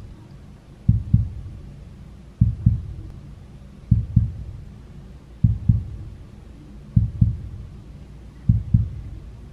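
Heartbeat sound effect: low double thumps, lub-dub, repeating evenly about every second and a half, six beats in all.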